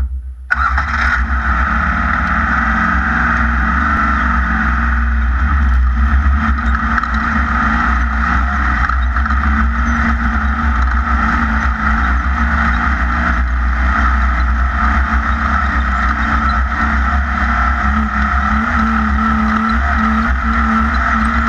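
Class 1600 off-road race buggy with an air-cooled VW flat-four, running steadily under way during a test drive. Loud, unbroken engine and drive noise with a deep rumble.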